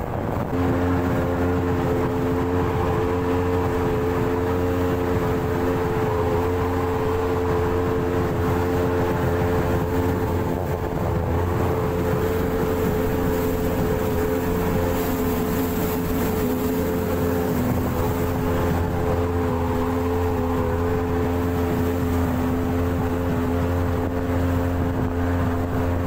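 Speedboat engine running at a constant speed with a steady drone, over a rush of wind and water noise.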